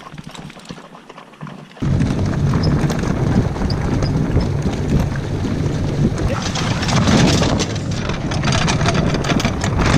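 A sled-dog team pulling a wheeled training cart over a dirt forest trail: the cart rumbles and rattles loudly, with wind buffeting the microphone. It starts abruptly about two seconds in, after a quiet stretch.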